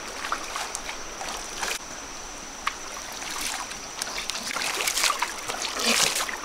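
Shallow water splashing and sloshing in irregular bursts, busiest near the end, over a steady thin high-pitched tone.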